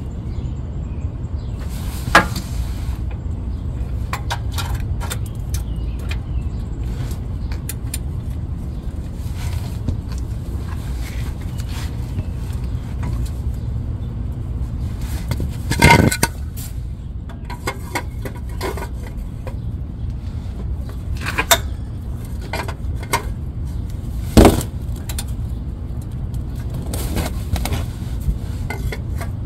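Metal hand tools clicking, knocking and scraping against parts under a minivan, with several sharp knocks spread through, over a steady low rumble.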